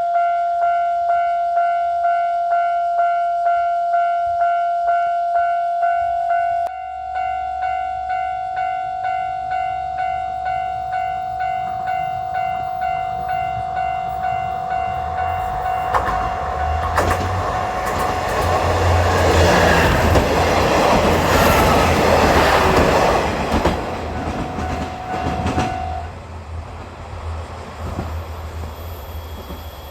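Japanese level-crossing warning bell ringing at about three strikes a second while the Ibusuki no Tamatebako, a train of KiHa 47-series diesel railcars, approaches and passes. The engine rumble and wheel clatter build to a peak in the middle, and the bell stops soon after the train has gone by.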